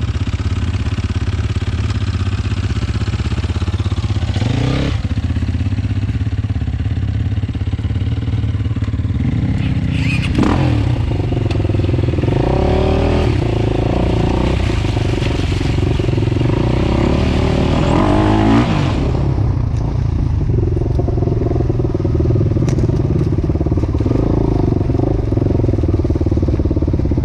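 Enduro dirt bike engine running under load as the bike rides a muddy track, recorded from the bike itself. The revs rise and fall several times, most strongly over the middle stretch. The upper hiss drops away about two-thirds of the way through.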